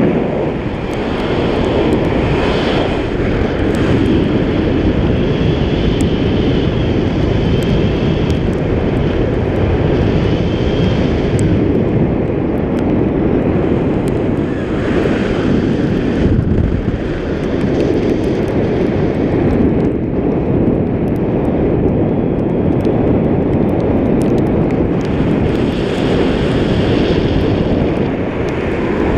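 Wind rushing over an action camera's microphone on a selfie stick in tandem paraglider flight: a loud, steady, low rushing.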